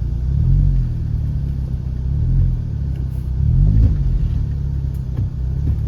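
Car engine at low speed, revved up and eased off three times as the car crawls over a rocky, rutted dirt track, with a few sharp knocks near the end.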